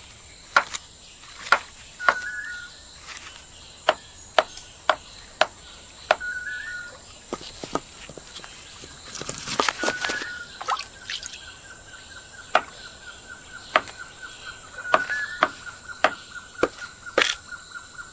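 Sharp, irregular knocks, one or two a second, of a capuchin monkey pounding a clam shell to tire the muscle that holds it shut. A bird repeats a short rising call, and from about ten seconds in a trilling call runs on.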